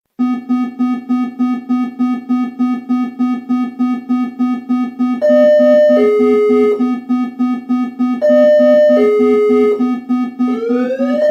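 Synthesized emergency-alert tones that start abruptly out of silence. A low buzzing tone pulses about four times a second. Twice a higher two-note chime falls from one note to a lower one, and near the end a rising siren-like sweep sets in.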